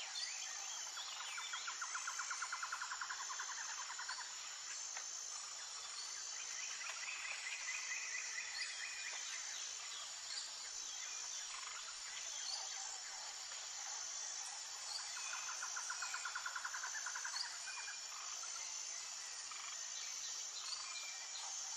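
Faint outdoor nature ambience: insects chirping steadily on a high note, with three rapid trills of a few seconds each: one near the start, one in the middle and one later on.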